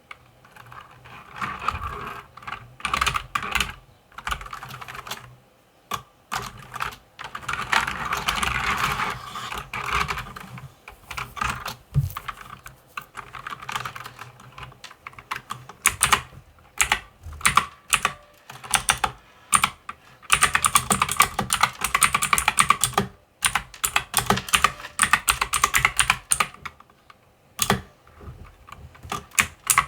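Typing on a mechanical computer keyboard: fast runs of key clicks broken by short pauses, busiest about eight seconds in and again from about twenty seconds in.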